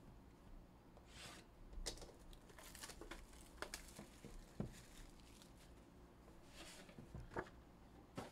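Faint crinkling and tearing of plastic shrink wrap as a card box is unwrapped, in short crackly bursts, with a soft knock of the box being handled about halfway through.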